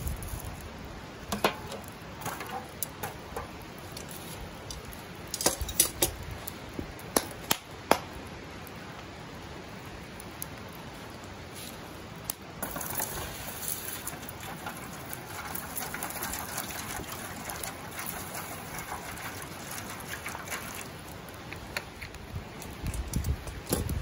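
Scattered sharp clicks and knocks as wood is shifted with tongs in a wood fire in a steel barbecue grill. About halfway through, water is poured steadily into an aluminium foil pan on the grill for several seconds.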